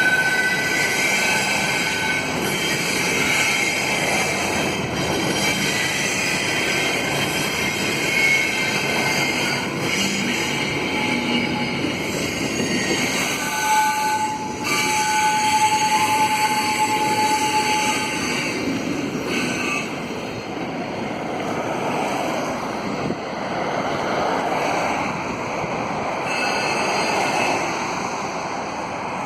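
Double-stack container freight train rolling through a curve, with a steady rumble of steel wheels on rail. High wheel squeals come and go, the longest held for a few seconds a little past halfway, as the wheels strain against the rails in the curve.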